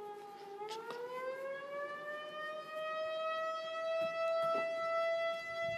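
Four-month-old puppy howling: one long, unbroken howl that sags slightly, glides up in pitch from about half a second in, then holds a steady higher note. A few faint knocks sound over it.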